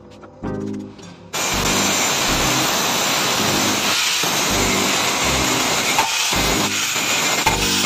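Angle grinder's disc grinding the edge of a steel gear piece, a steady harsh hiss that starts about a second in. Background music with a steady beat runs underneath.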